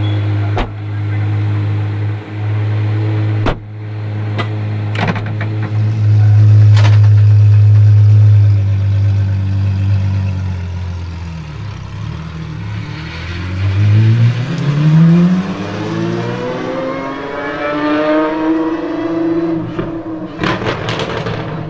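Apollo IE's naturally aspirated V12 idling steadily, with a few sharp clicks. About halfway through the note dips, then the revs climb in rising sweeps as the car pulls away, and a burst of sharp cracks comes near the end.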